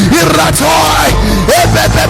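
Loud, shouted praying in tongues over instrumental worship music with a steady beat.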